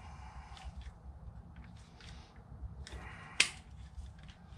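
Hands working C-clamps on a four-piston brake caliper while pushing its pistons back into their bores: scattered small clicks and rustles, with one sharp click about three and a half seconds in.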